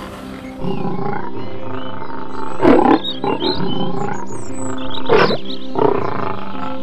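A big cat giving short, rough roaring grunts, four of them spaced a second or two apart, over steady background music that comes in about half a second in.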